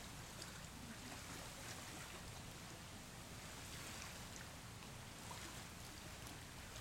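Faint, steady beach ambience with scattered light clicks of hermit crab shells knocking together as the crabs clamber over one another.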